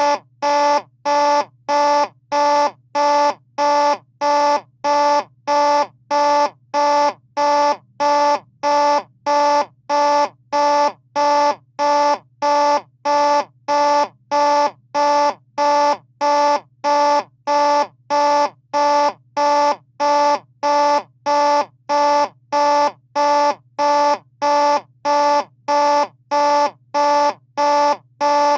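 Simplex 2903 and 2901-9806 fire alarm horns sounding together in march-time code from a Simplex 2001 panel: loud, buzzy blasts pulsing evenly at 90 a minute, about one and a half a second.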